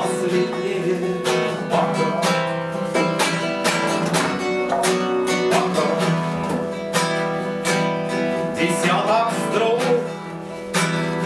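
Classical guitar playing a rhythmic chord accompaniment, with a man singing one word near the start; the playing briefly softens near the end.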